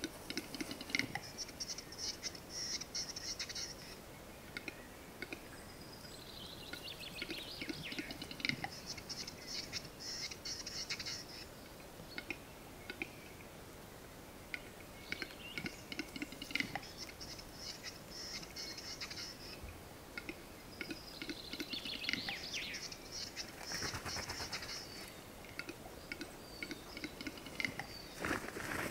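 A male western capercaillie singing its display song, repeated every six seconds or so. Each phrase is dry clicks running into a scratchy, hissing whetting phrase a few seconds long.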